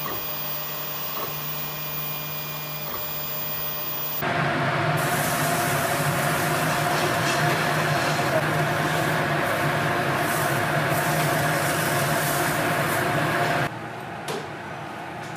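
A 3D food printer runs with a steady motor hum while printing a plant-based meat patty. About four seconds in, a louder steady hiss with light crackle takes over as the patty fries in a pan on a gas burner. The hiss cuts off near the end, and a few light clicks follow.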